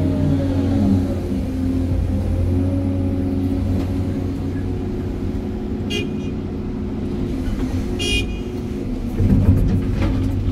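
Diesel excavator engine running steadily under load, heard from the operator's cab, with the hydraulics' pitch rising and falling in the first second. Two short high beeps or toots come about six and eight seconds in, and scattered knocks near the end.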